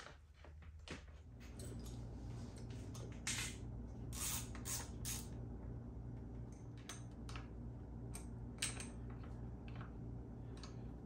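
Hand tools and metal parts clicking and clinking while a dirt bike's front axle and disc-guard bolts are fitted with a T-handle wrench: scattered sharp clinks, a few close together near the middle. A steady low hum comes in about a second in and runs beneath them.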